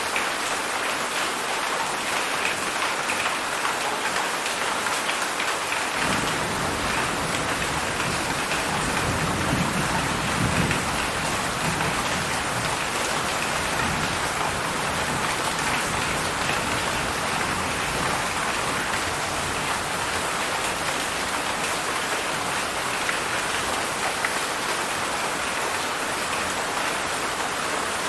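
Heavy rain falling steadily. A low rumble of distant thunder comes in about six seconds in, swells for a few seconds and then slowly fades under the rain.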